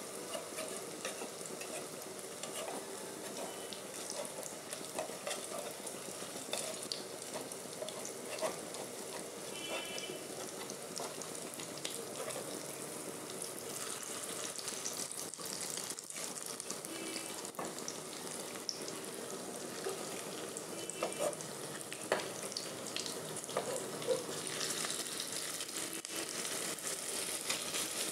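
Masoor dal fritters deep-frying in hot oil in a kadai: a steady crackling sizzle, with a few sharp clicks in the second half.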